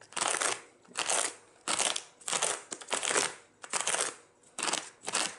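Flat edge of a wood chisel scraping back and forth across the rough bottom of a cut-out in a black bead-foam case insert, smoothing it. About eight or nine short scraping strokes, roughly two a second.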